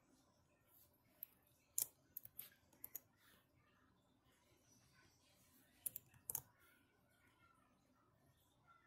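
Computer keyboard and mouse clicking while text is edited: a handful of sharp clicks around two seconds in and another few around six seconds in, faint room tone between.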